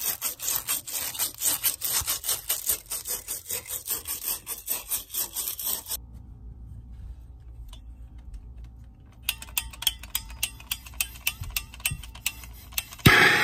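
A copper water pipe being scoured clean by hand for soldering, with rapid back-and-forth rubbing strokes at about four a second. After a pause, a propane torch's igniter clicks repeatedly, and near the end the torch lights with a sudden pop and a steady hiss.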